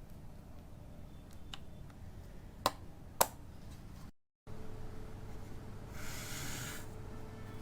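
Two sharp clicks about half a second apart, then after a short gap of dead silence a brief hiss lasting under a second, over a faint steady hum.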